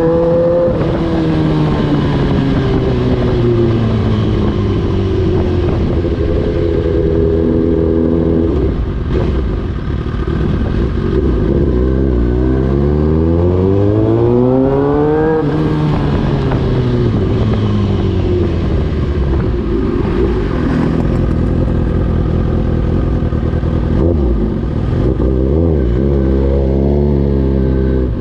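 Suzuki GSX-R 1000's inline-four engine through an Austin Racing aftermarket muffler, its exhaust note changing with engine speed. The pitch sinks slowly for several seconds, holds, climbs steadily for about three seconds to a high peak halfway through, drops back, and rises again near the end.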